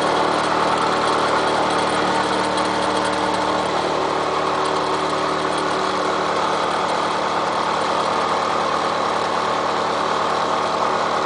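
Milling machine running steadily, its cutter machining the steel of a railroad-track anvil.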